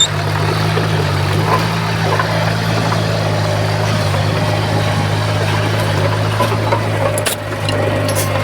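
Diesel engine of heavy earthmoving machinery running steadily, a low drone with a faint steady whine above it. The drone dips briefly about seven seconds in, and a few sharp clicks or clanks come near the end.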